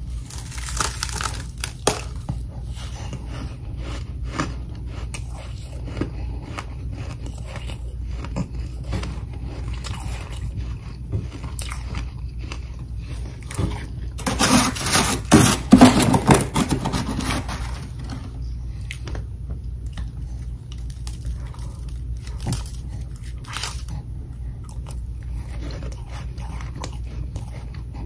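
Crunching and chewing of mouthfuls of powdery freezer frost, in short crisp crunches. About halfway through, a louder stretch of a metal spoon scraping and digging built-up frost off the freezer floor lasts a few seconds.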